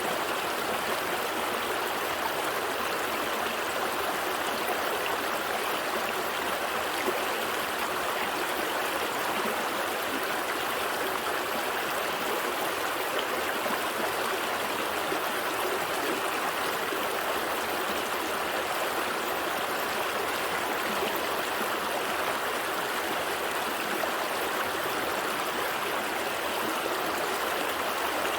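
Gentle stream flowing steadily, an even rush of water over stones with light trickling.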